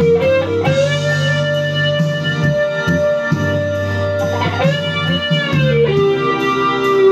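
Lead electric guitar from a 1993 Fender Stratocaster American Standard, distorted through a Boss DS-1 pedal, played over a backing track. A single note is held for about four seconds, then several notes are bent up and back down.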